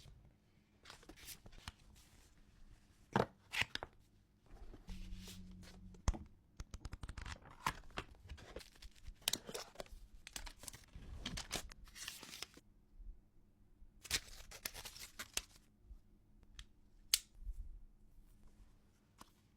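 Packaging being torn open by hand: irregular tearing and crackling in several stretches of a second or two, with sharp clicks and taps between them.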